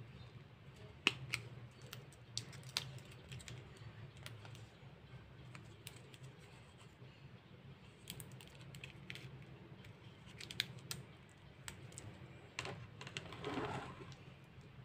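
Small clear plastic case of a Faber-Castell kneadable eraser being handled and opened: scattered sharp plastic clicks and taps, with a brief handling rustle near the end, over a low steady hum.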